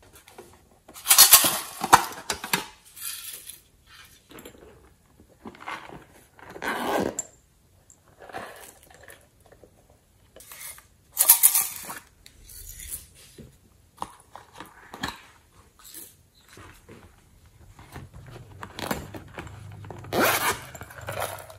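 Slime being mixed and worked by hand in a container, giving irregular squishes and scrapes. The loudest come about a second in, near the middle and near the end.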